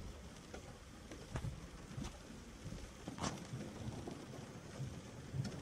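Rain falling: a soft, even hiss with individual drops striking close by in irregular clicks, a few of them louder. The sound cuts in abruptly at the start.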